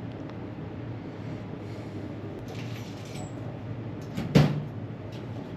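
A single sharp thump about four seconds in, over a steady low hum.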